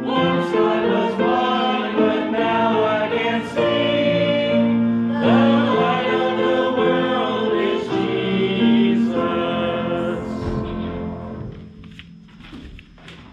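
Small church congregation singing a hymn together in unison, the singing ending about eleven seconds in. A few light knocks follow near the end.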